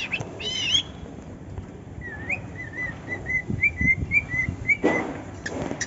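Male cockatiel whistling: a couple of arched calls at the start, then a quick run of short, rising chirped whistle notes, about three a second. Two brief harsh bursts come near the end.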